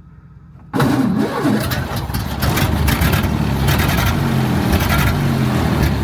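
1929 Ford Model A's four-cylinder engine started on the floor starter button: it comes to life suddenly about a second in and keeps running, a little louder from about halfway.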